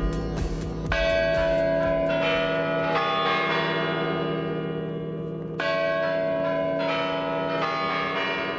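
Church bells ringing, several bells struck in turn, each note ringing on long after the strike. The strongest strikes come about a second in and again a little past halfway.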